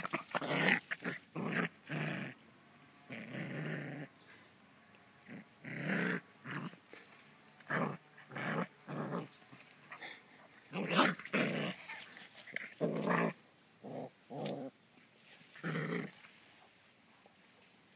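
Puppy growling in short, irregular bursts while play-fighting with a cat.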